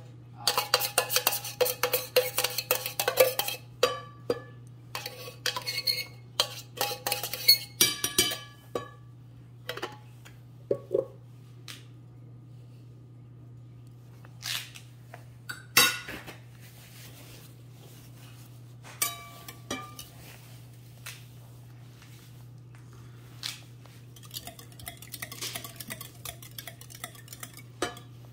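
Wire whisk clinking and scraping against a glass mixing bowl as egg and coconut-milk batter is beaten. It comes in fast runs of clicks, busiest for the first several seconds and again near the end, with pauses and a few louder single knocks in between.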